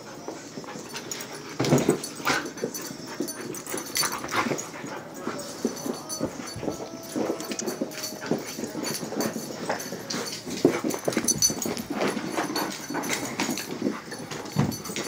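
German Shepherd puppies play-fighting: short dog vocal sounds mixed with irregular scuffles and thumps, going on throughout.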